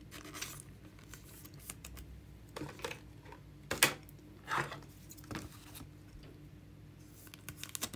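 Light plastic rustling and small clicks as a trading card is slid into a soft plastic penny sleeve and handled, with a few sharper ticks around four to five and a half seconds in.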